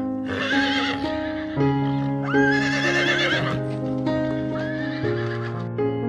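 Horse whinnying about three times, each call a wavering, quavering high cry, over background music of sustained keyboard notes.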